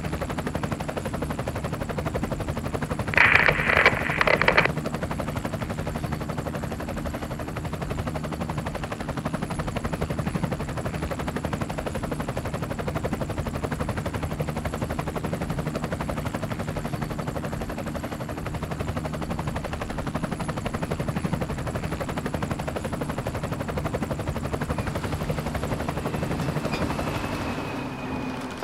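A steady motor drone with a fast flutter. About three seconds in, a loud burst of sharp rattling strokes lasts about a second and a half.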